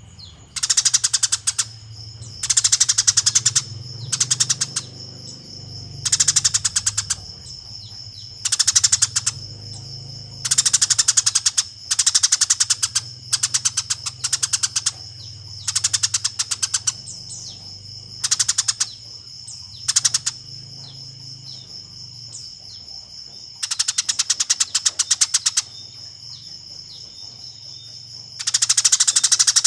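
Eurasian tree sparrow giving its agitated fighting chatter: bursts of rapid chirps, each about a second long, repeated over and over with short pauses between them.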